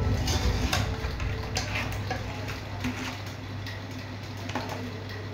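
Metal spoon clinking and scraping against a steel cooking pot of rice, a few scattered clicks that thin out after the first couple of seconds, over a steady low hum.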